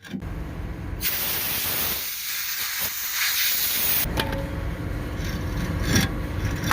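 An engine running steadily, with a loud hiss of escaping gas or air for about three seconds starting a second in.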